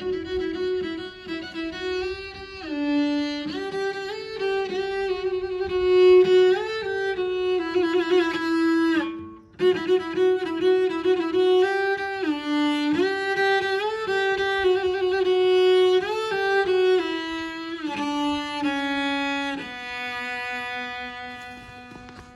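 Solo cello playing a melody with vibrato and sliding notes. It breaks off briefly about nine seconds in and ends on a long held note that fades.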